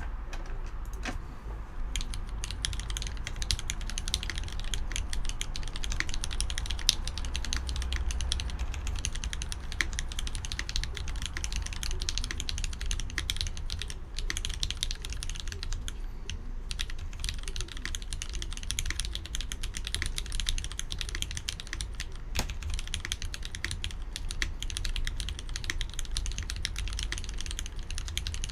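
Steady typing on a Keycult No.1/65 mechanical keyboard with retooled Cherry MX Black linear switches, 65 g springs, lubed with GHV4: a continuous patter of keystrokes that settles in about two seconds in, with a brief pause about halfway.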